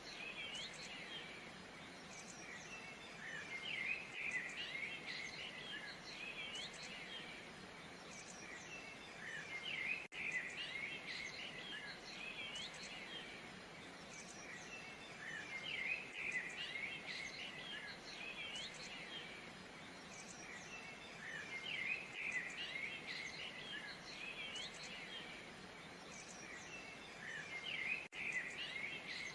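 Many small birds chirping and twittering, in busier spells every few seconds, over a steady faint hiss. The sound briefly cuts out about ten seconds in and again near the end.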